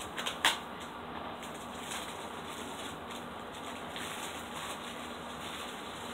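Plastic shrink-wrap on a DVD case being scraped and rustled as it is cut open with a comb, with a short sharp scrape about half a second in, then faint crinkling.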